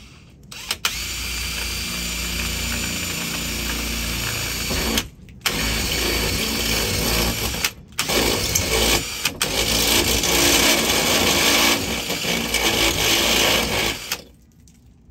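A cordless drill spinning a step bit into sheet-steel roof panel, cutting out a hole. It runs in long stretches with three short stops and cuts off about a second before the end.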